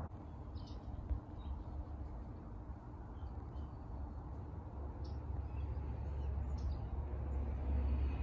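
Garden ambience: scattered short bird chirps over a steady low rumble.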